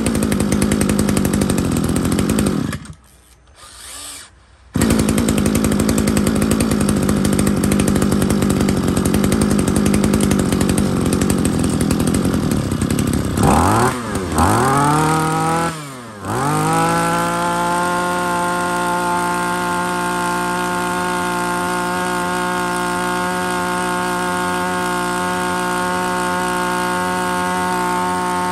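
Komatsu Zenoah 2750 brush cutter's 27 cc two-stroke engine running after a pull start. It drops away for about two seconds early on, picks up again, is revved up and down twice about halfway through, then settles into a steady, even run.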